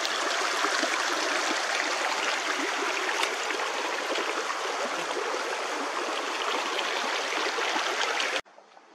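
Small rocky mountain creek rippling and splashing over stones in a steady, even rush of water. It cuts off suddenly near the end.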